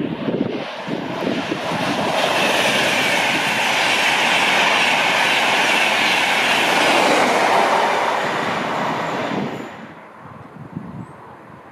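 InterCity 225 train (electric locomotive hauling Mark 4 coaches) passing close by: the rolling noise of wheels and air builds about two seconds in, holds steady for several seconds, then falls away quickly. Wind buffets the microphone before and after the pass.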